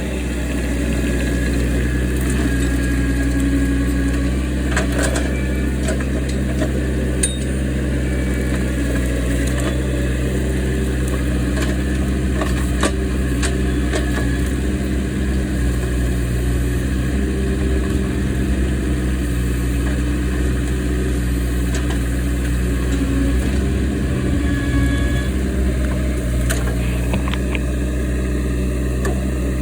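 Engine of a heavy machine running steadily under load while hauling a heavy piece of oak trunk, with a few short clanks now and then.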